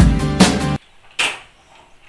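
Background music with a steady beat that cuts off abruptly under a second in. About a second in there is a single short clink as a steel pot is handled and set on the gas stove.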